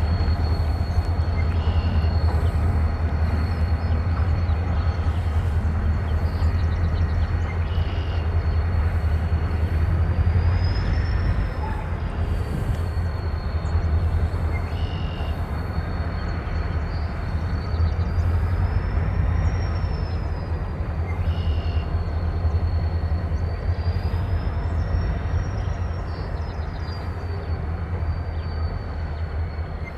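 Lake State Railway freight train's cars rolling on the rails, a steady low rumble with clicks every second or two. Over it runs a thin, high, steady whine that swells in pitch and falls back a few times, and the rumble eases off toward the end.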